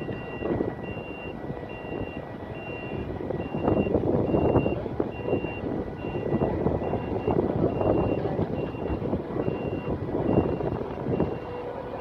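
Heavy crane's warning alarm beeping steadily, a little under two high beeps a second, over a faint steady tone. Strong wind buffets the microphone in gusts, loudest about four seconds and eight seconds in.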